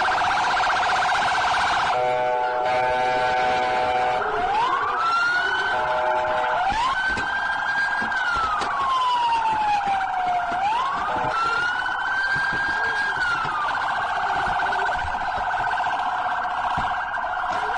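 Police car siren: a fast warbling yelp throughout, with a slower wail overlapping it that rises and falls several times.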